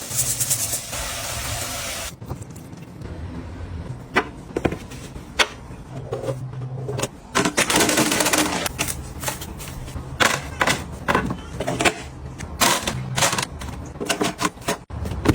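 Household objects being handled: a hiss for the first two seconds, then a run of sharp clicks, taps and light knocks, with a short rush of noise about eight seconds in.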